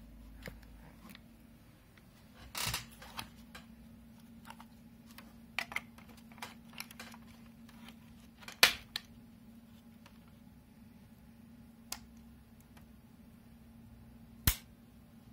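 Handling clicks and knocks of a small plastic plug-in mosquito killer lamp: scattered taps, a loud knock about two-thirds of the way through as it goes into the wall socket, and a sharp click near the end from its rocker switch. A faint steady low hum runs underneath.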